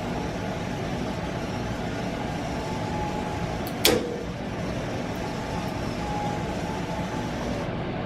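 Steady hum of an Instron tensile testing machine pulling a 3D-printed plastic screw-gate carabiner, with one sharp crack just before four seconds in as the carabiner's threaded gate gives way under load.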